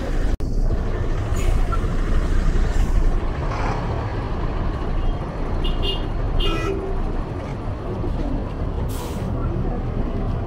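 City street traffic: vehicles running and passing close by, with short hisses now and then and a brief tone partway through.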